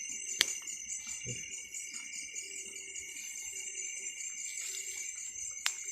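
Night insects, crickets or similar, chirring steadily in several high, finely pulsing bands. A sharp click sounds about half a second in, and another near the end.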